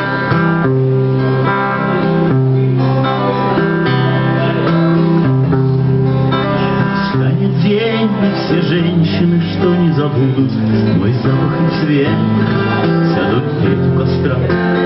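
Instrumental intro of a song: acoustic guitar strummed, with a violin playing long held notes over it.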